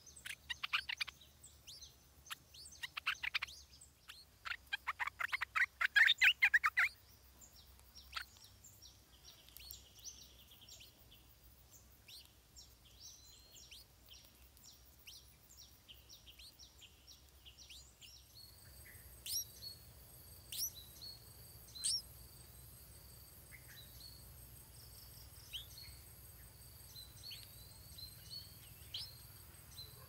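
Stripe-throated bulbul nestling begging while being fed: rapid bursts of shrill chirps for the first seven seconds or so. After that come only fainter, scattered bird calls over a steady high insect drone.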